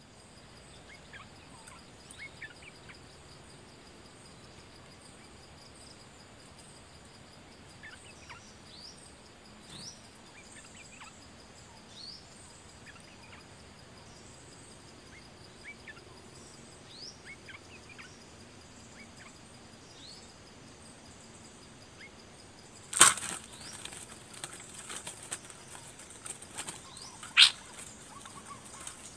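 Faint, short rising bird chirps scattered throughout, then two loud, sudden bursts of bird wing-flapping and clatter against a wire trap cage, one about three-quarters of the way in and one near the end, as a bird comes to the decoy cage.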